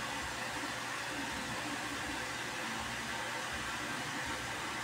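Steady, even background hiss, like a fan or air blowing, with no distinct events.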